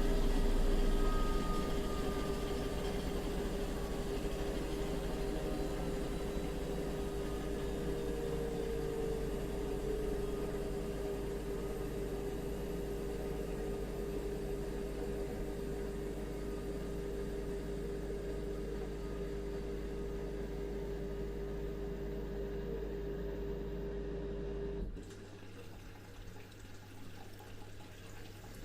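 Bosch washing machine spinning, its drum motor giving a steady whine over a low hum, easing off slightly before cutting out abruptly near the end. A fainter hum and water trickling through the machine follow.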